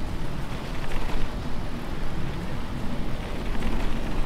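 Wind buffeting a helmet-camera microphone, with the rolling rumble of a mountain bike's tyres on pavement.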